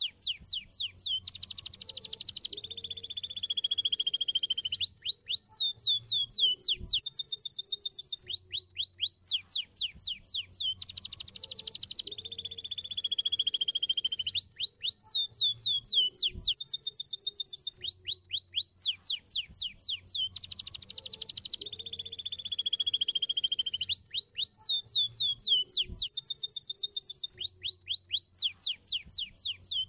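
Domestic canary singing a long song of fast trills alternating with long, slowly falling notes. The same passage comes round again about every ten seconds.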